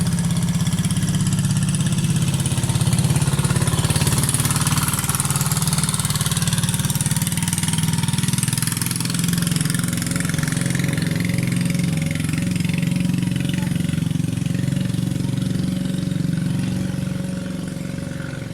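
Small engine running steadily with a fast even pulse, easing slightly near the end.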